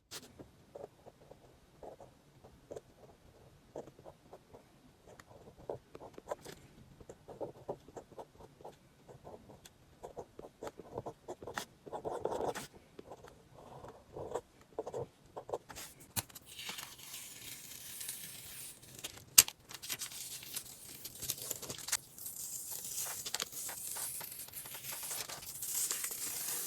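Light taps and scrapes, then masking tape being peeled off the edges of a canvas, a dry tearing hiss that runs on through the last third with one sharp snap partway through.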